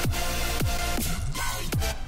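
Electronic background music with a steady beat of deep, downward-sliding hits about twice a second over held synth notes.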